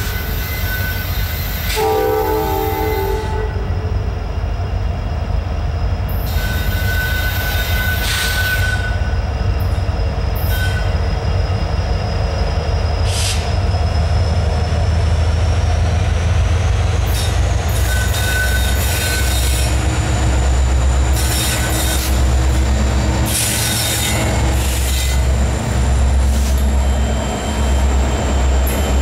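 Norfolk Southern diesel freight locomotives (an EMD SD70 leading an SD70ACe and a GE ES40DC) approach and pass close by with a heavy, building engine rumble. The horn's chord stops just after the start and sounds once more briefly about two seconds in. As the engines and the loaded hopper cars roll by, the wheels squeal against the rails again and again, and a thin high whine runs through the second half.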